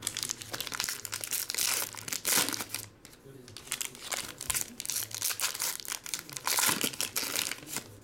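Foil wrapper of a 2020 Panini Legacy football card pack being torn open and crinkled by hand, a dense crackling that pauses briefly about three seconds in.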